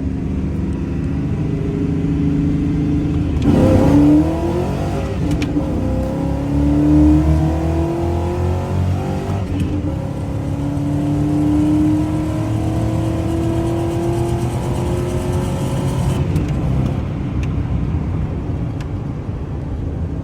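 Engine of a TR6060 six-speed manual swapped GMC Sierra pickup running on the move. The revs rise and fall: a quick jump about four seconds in, a climb that cuts off sharply near the middle as at a gear change, then a slow climb before it settles.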